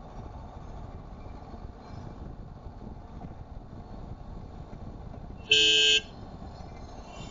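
A car horn gives one short beep, about half a second long, five and a half seconds in, over the steady road and engine noise of a car driving.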